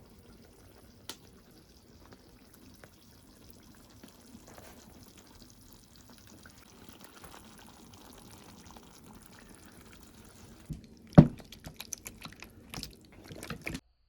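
Liquid pouring faintly, then a sharp knock about eleven seconds in followed by a run of clicks and clatters, like tableware being handled, before the sound cuts off.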